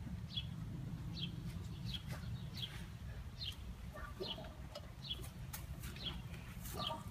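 A small bird chirping over and over: short, high, falling chirps about every three-quarters of a second, over a steady low rumble.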